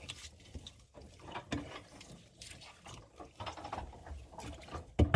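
Stew being stirred in a cooking pot: irregular scrapes and clinks of the spoon against the pot, then a rapid clatter about five seconds in, the loudest part.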